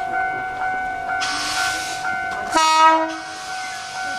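A train horn sounds one short blast about two and a half seconds in, the loudest sound, just after a hiss. Underneath, a level-crossing warning bell rings steadily about twice a second.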